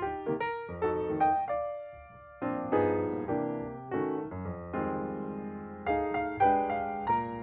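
Piano music: struck chords and single notes that ring and fade, with a short pause about two seconds in before the playing resumes.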